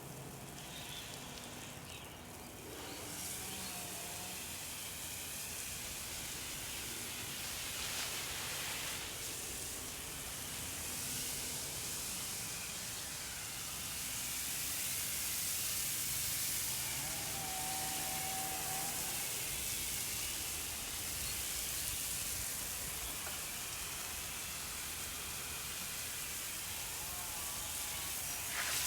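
Garden hose spraying water onto flower beds, trees and concrete: a steady hiss of spray and splashing that swells and eases as the stream is moved about.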